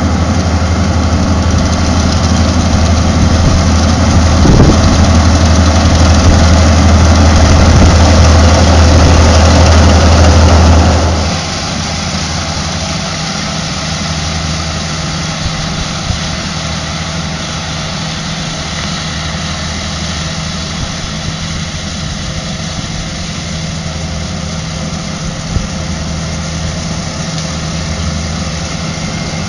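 Kubota rice combine harvester running steadily, its engine a deep hum under the clatter of the cutting and threshing machinery. The sound drops abruptly about eleven seconds in and runs on steadily quieter.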